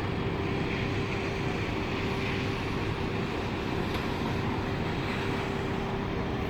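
Steady machinery drone, a constant rumble with one unchanging mid-pitched hum running through it.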